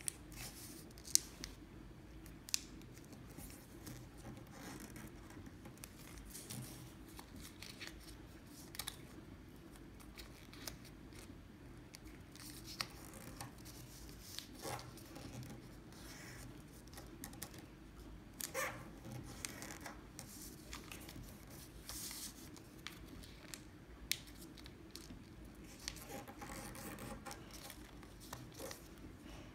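A sheet of origami paper being folded and creased by hand: scattered crisp rustles and sharp crinkles as the folds are pressed flat, over a faint steady hum.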